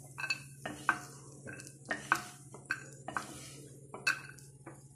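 Wooden spatula knocking and scraping in a nonstick kadai and against a steel bowl as fried cashews and raisins are scooped out. There are about a dozen short, irregular clatters, some with a brief metallic ring.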